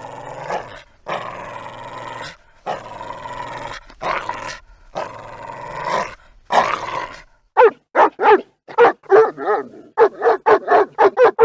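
A dog growling in a series of long growls, each lasting about a second with brief breaks between them. About seven and a half seconds in it switches to rapid barking, two or three short barks a second.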